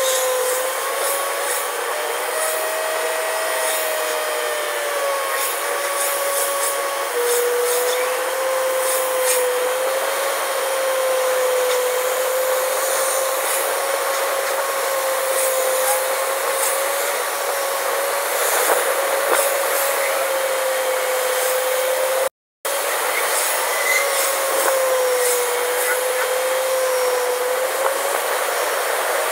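Car driving, with steady road and engine noise and a whine that wavers slightly in pitch and drops once early on. The sound cuts out completely for a split second about three-quarters of the way in.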